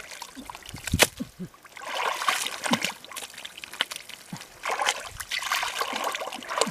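Hands groping and scooping through thick mud and muddy water, with uneven sloshing and splashing. A sharp smack about a second in is the loudest moment.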